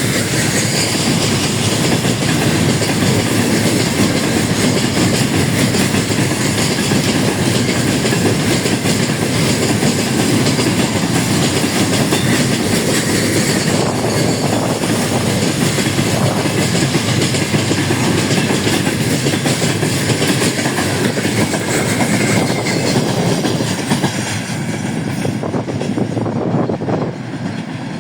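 Freight train rolling past at steady speed, the wagon wheels running over the rails; the sound eases off a little in the last few seconds.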